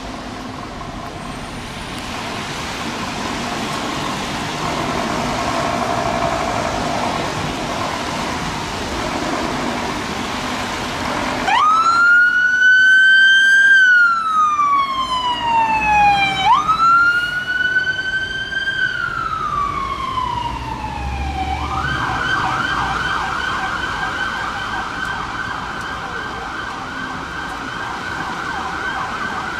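Fire engine siren starting up about eleven seconds in: two long wails, each rising quickly and falling slowly, then switching to a fast yelp about twenty-two seconds in. Before the siren, a steady noise of engine and road.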